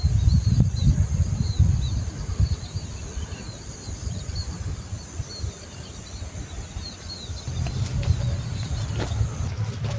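Small birds chirping in short repeated calls, a few a second, over a steady high buzz that stops near the end. A low rumble is loudest in the first two seconds and returns near the end.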